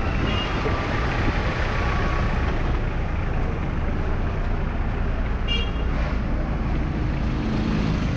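Congested street traffic: engines of slow-moving cars, a van and motor scooters running close by, a steady low rumble. A brief high-pitched tone sounds about five and a half seconds in.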